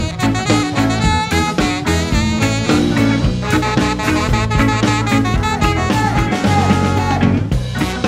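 Live band playing upbeat funk/ska with a saxophone solo over drum kit, bass guitar and keyboards, the saxophone holding one long note near the end.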